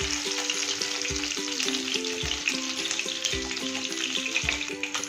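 Hot oil sizzling in a pan around shallow-fried fish pieces as they are stirred and lifted out with a wooden spatula, over background music with a steady beat.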